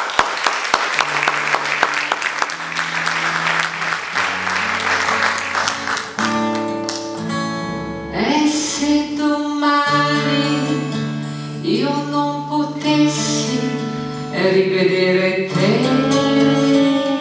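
Audience applause for the first few seconds, then a woman singing over an instrumental accompaniment, her voice rising into long held notes several times.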